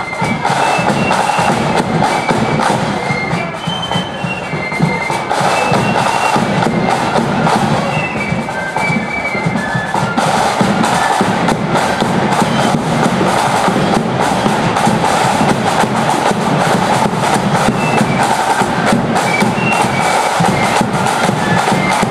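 Marching band playing: side drums and bass drum beating under a high melody line, the drumming growing louder about ten seconds in.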